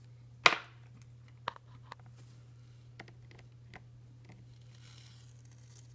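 Multimeter and test probes being handled: one sharp clack about half a second in, then several soft clicks and taps as the probes are placed, over a steady low hum.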